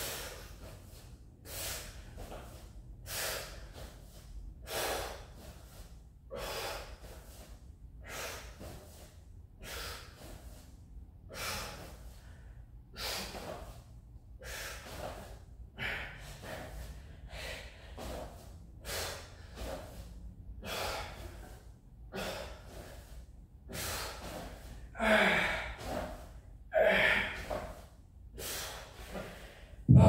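A man breathing hard and rhythmically while swinging a kettlebell, with a forceful breath about once a second. The breaths grow louder and more strained a few seconds before the end as he tires toward failure.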